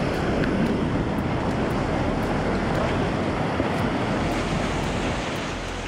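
Steady rushing noise of wind and water, with wind buffeting the microphone.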